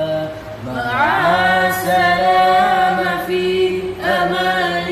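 Islamic devotional chant: voices singing a supplication without instruments, in long held notes with melodic turns. A new phrase begins about a second in and another about four seconds in.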